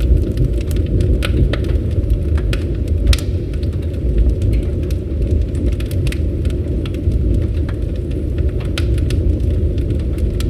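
Campfire burning: scattered sharp crackles and pops over a steady low rumble.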